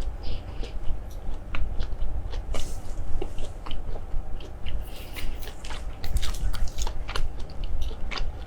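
Close-miked eating: a person biting and chewing crunchy food, with many irregular crisp crunches.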